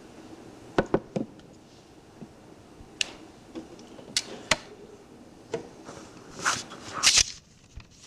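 A scattered run of sharp clicks and knocks, then two louder, longer rustling noises near the end, over steady tape hiss that suddenly drops lower just after them.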